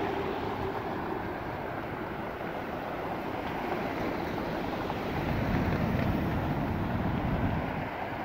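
Downtown street traffic: a steady wash of passing vehicles, with a heavier, lower-pitched vehicle passing close from about five seconds in to near the end.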